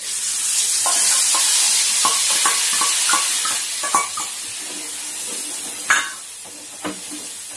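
Spice slurry poured into hot oil and fried moong dal badi, sizzling loudly at once and dying down after about four seconds. Over the sizzle, a steel spoon taps and scrapes a steel bowl in a quick run of ringing clinks, and a single knock on the pan comes near the end.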